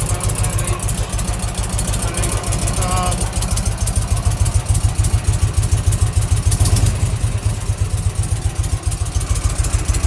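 Harley-Davidson Shovelhead V-twin engine running at idle with a steady, even exhaust pulse after a carburettor rebuild. It runs a little louder from about four seconds in.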